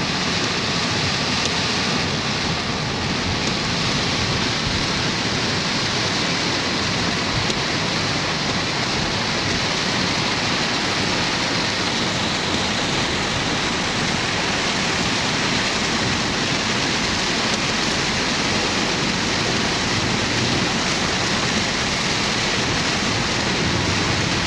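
Very heavy rain pouring down steadily: a dense, even hiss with no breaks.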